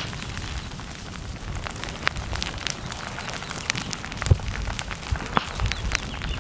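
Dry ferns and brush crackling and popping as they burn at the edge of a creeping lava flow. The snaps are sharp and irregular, with one louder crack about four seconds in.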